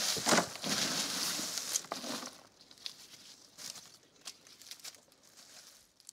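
Cane leaves and chopped cane chips rustling and crackling as they are handled on a mulch heap, loudest for the first two seconds or so, then thinning to scattered faint crackles.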